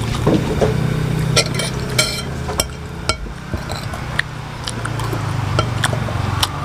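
Metal spoon clinking and scraping against a ceramic plate while scooping fried rice: a string of separate sharp clinks, with a steady low hum underneath.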